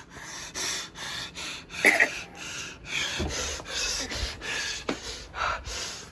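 Breathy, near-silent laughter: a string of short exhaled bursts, about two to three a second.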